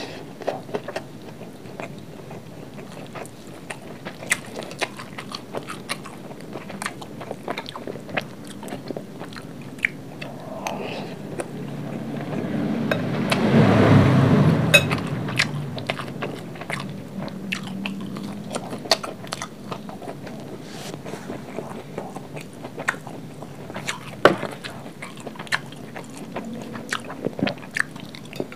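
Close-up eating sounds of a mouthful of fried rice being chewed: wet smacks and many small sharp clicks, with now and then a metal spoon touching the glass plate. Around the middle a louder, deeper sound swells for about three seconds.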